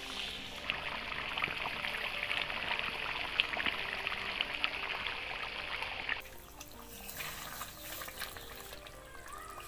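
Curry of beef liver bubbling and sizzling hard in a pan over a wood-fired clay stove, with a metal spatula stirring through it and a dense run of small crackles. About six seconds in, the sound cuts off suddenly to a quieter spell of light crackle and scraping.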